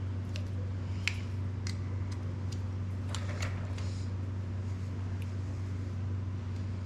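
A steady low mechanical hum throughout, with a few light clicks and taps as a plastic part and a small tool are handled.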